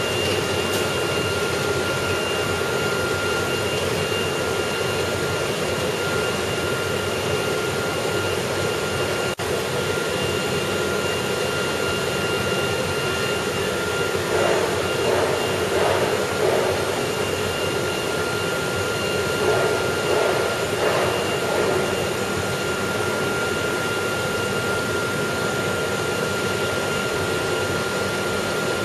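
Ice vending machine running with a steady mechanical hum and a constant high whine, with a stretch of irregular rattling and clatter from its automatic bagging mechanism in the middle.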